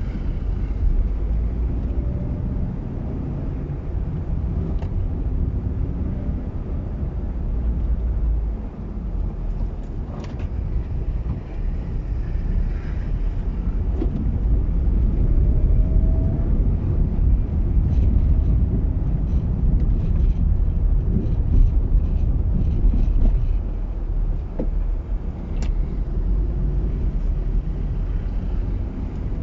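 A car being driven along a road: a steady low engine and road rumble, with scattered small clicks and knocks.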